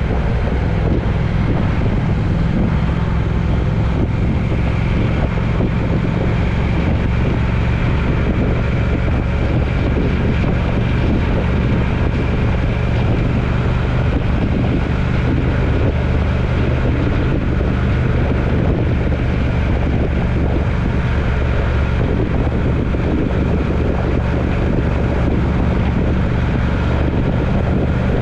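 A road vehicle running steadily while driving: a constant low engine drone mixed with road and wind noise, unchanging throughout.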